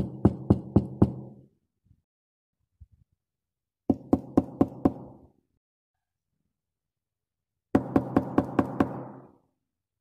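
Knocking on a door: three quick bursts of five or six knocks each, about four seconds apart.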